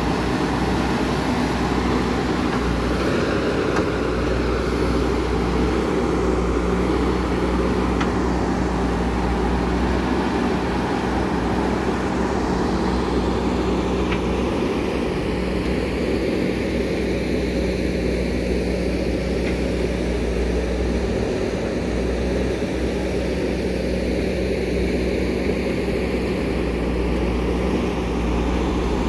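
JCB 3DX Super backhoe loader's diesel engine running steadily under work.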